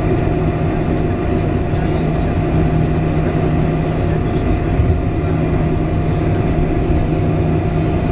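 Steady cabin noise inside a Boeing 747-400 taxiing on the ground: the jet engines running low, a low drone with a fainter higher hum over a rumbling rush.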